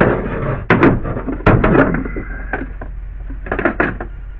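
Metal wiper linkage clunking and knocking as it is handled and set into the cowl housing under the windshield. There are several sharp knocks in the first two seconds and a quick cluster near the end, over a steady low hum.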